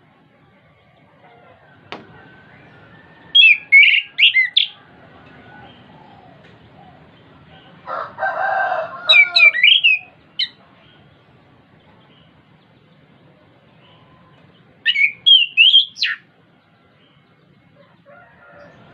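Orange-headed thrush singing three short bursts of rapid, high twittering and whistled notes. The middle burst opens with a lower, harsh rasping phrase.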